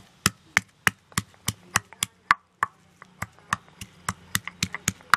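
Stone pestle pounding garlic cloves in a stone mortar for ginger-garlic paste: sharp, regular strikes at about three a second, with a brief pause about three seconds in.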